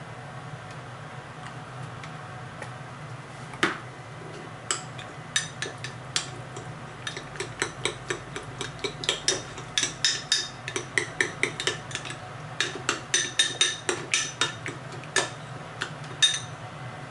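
Kitchen utensils clinking and tapping against dishes, irregular sharp clicks with a bright ring, coming thick and fast from a few seconds in, over a steady low hum.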